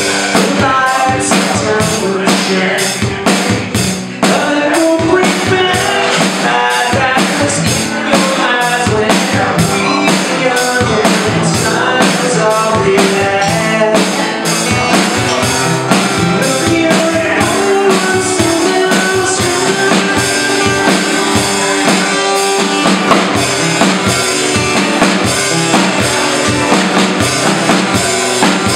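Live acoustic guitar and drums playing an instrumental passage, the guitar carrying the tune over a steady beat on snare, cymbal and bass drum.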